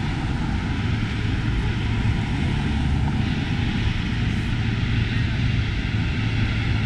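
Steady city street noise from traffic on a busy avenue: a continuous low rumble of engines and tyres under a wide hiss.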